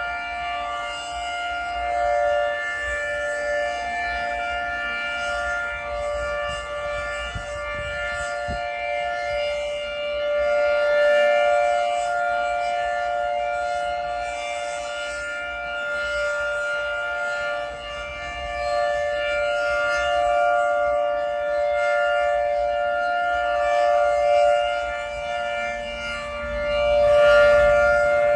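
Federal 2T22 dual-tone rotating warning siren sounding its steady alert for a weekly siren test: a held two-tone chord with a string of overtones. It grows louder and fades every several seconds as the siren head turns.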